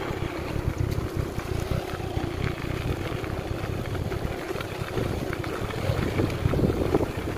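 Steady rumble of a vehicle travelling along a rough dirt track, with wind buffeting the microphone.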